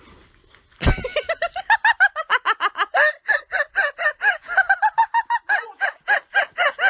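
Rapid, high-pitched cackling calls, about five or six a second, starting suddenly about a second in.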